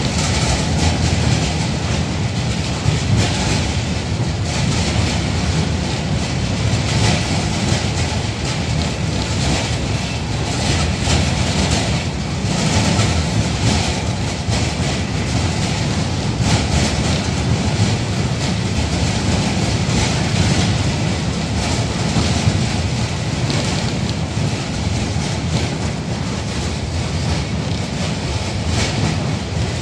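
A 71-605A (KTM-5) tramcar under way, heard from inside the passenger saloon: the steady low rumble of steel wheels on the rails with irregular clatter and rattle throughout.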